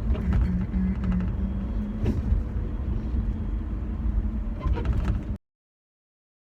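Car interior noise while driving: a steady low engine and road rumble with a few light knocks, cutting off abruptly to dead silence about five seconds in.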